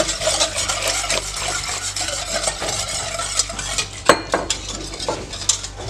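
Wire balloon whisk beating milk into sugar, flour and starch in a stainless steel pot, the wires scraping and ticking against the pot's sides and bottom, with a sharper knock about four seconds in.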